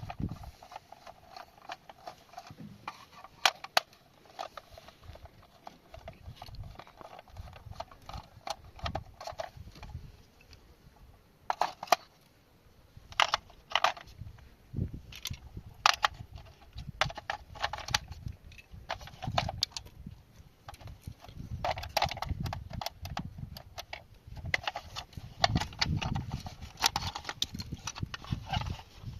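Irregular clicks, knocks and rattles of hard plastic parts of a small washing machine being handled and taken apart, with dull thumps between them. A faint steady hum runs through the first few seconds.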